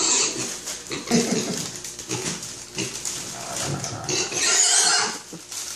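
Miniature pig grunting and squealing in bursts, begging for a cracker, with a harsher, higher squeal about four and a half seconds in.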